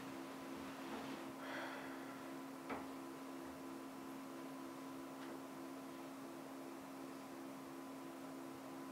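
Faint steady electrical hum, with a soft rustle about a second and a half in and a single short click a little later.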